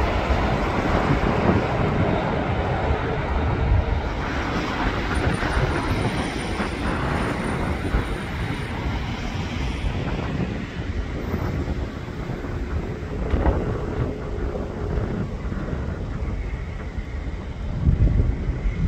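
Jet airliner landing: a broad, steady engine rumble, loudest in the first half and dying away after about ten seconds, then a low rumble building again near the end.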